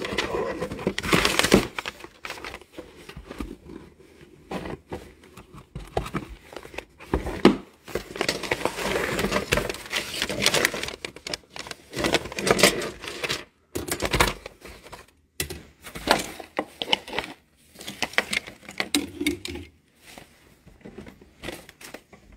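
Phone handling noise: irregular rustling and crackling with scattered sharp clicks as the microphone is rubbed and moved against something soft, with a few brief quiet gaps.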